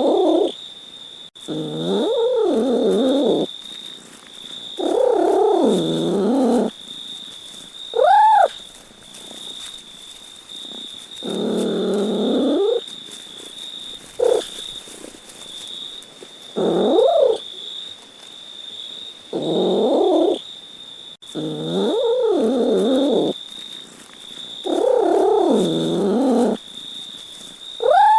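Domestic cat meowing over and over, about ten meows a couple of seconds apart, some long and drawn out, others short and higher-pitched. A steady high whine runs underneath.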